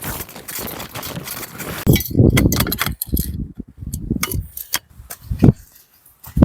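Rustling and light clinking of gear being handled, followed by a series of separate footstep-like thuds on the ground.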